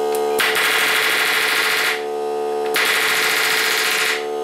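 Pneumatic palm nailer hammering a nail into pine in two bursts of rapid blows, each about a second and a half long, with the cordless air compressor's motor humming steadily underneath. The nail is struggling to go in, which the owner puts down to a leaking hose coupler.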